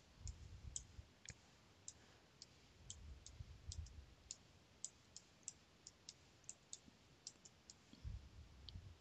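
Faint, irregular clicking of a computer mouse while photos are dragged and dropped into place, about three clicks a second. A few soft low bumps come in now and then.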